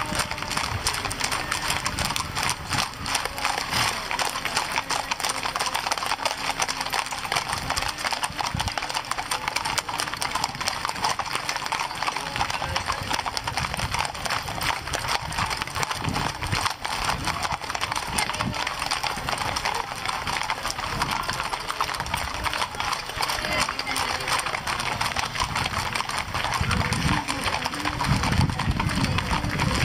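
Hooves of many horses clip-clopping in a dense, continuous stream of clicks, a little louder near the end, with voices in the background.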